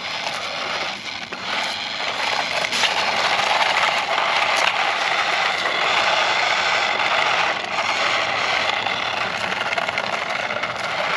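Radio-controlled toy cars driving over rough ground: a steady scraping, rattling noise of small wheels and drivetrains.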